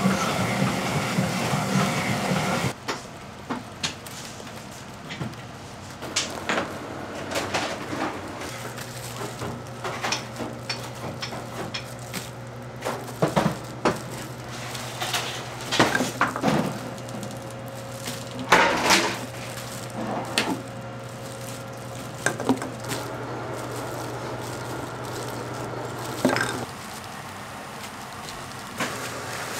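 Rice cake making work: scattered knocks and clatter of utensils and dishes on hard surfaces. A louder steady machine runs at first and cuts off after about three seconds, and a low steady machine hum comes in about nine seconds in and stops a few seconds before the end.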